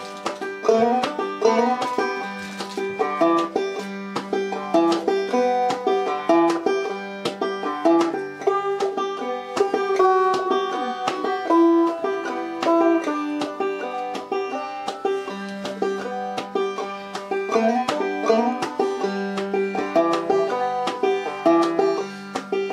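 Banjo played clawhammer style: a simple exercise tune that runs up a scale with slides and hammer-ons, in a steady stream of plucked notes.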